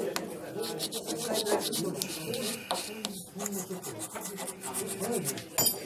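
Flat hand file rasping across the edge of a thin bamboo taketombo blade in a run of short scraping strokes. It is shaving wood off the blade's heavy side to bring it into balance.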